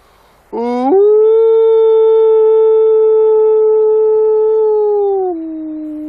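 Gray wolf howling: one long howl that sweeps up in pitch about half a second in and holds a steady note, then drops to a lower held note near the end.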